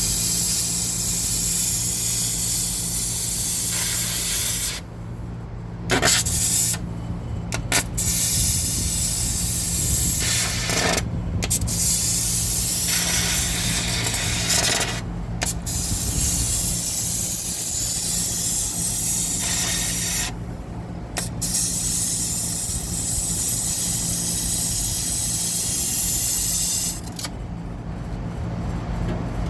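Hissing of gas under pressure, cutting off and starting again several times, over a steady low hum.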